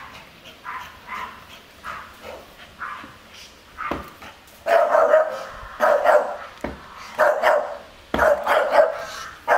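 Staffordshire Bull Terrier barking repeatedly. The barks are faint and quick at first, then loud, about one a second, from about halfway: warning barks at a stranger at the fence.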